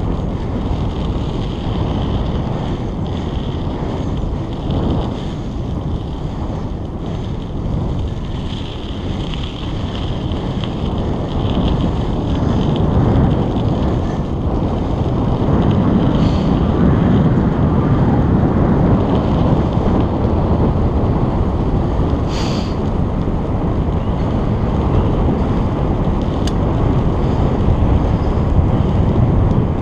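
Wind buffeting a GoPro's microphone on a moving bicycle: a steady low rumble that grows a little stronger about halfway through, with one brief sharp click about two-thirds of the way in.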